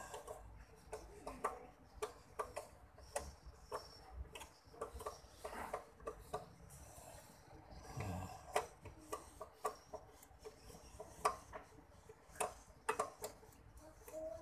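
An M5 tap turned by hand in a drill-press chuck, cutting a new thread into a screw hole of an aluminium overhead fishing-reel frame: irregular sharp metallic clicks and ticks.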